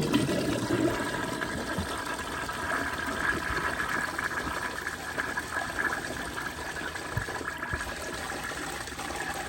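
Crane Santonia toilet flushing, a big 7-gallon flush rushing through the bowl, loudest at the start and then settling to a steady rush of water.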